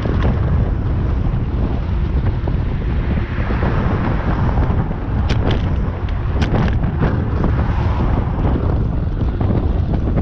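Strong wind buffeting the microphone during a bicycle ride: a loud, low, continuous rumble, with a few sharp knocks about halfway through.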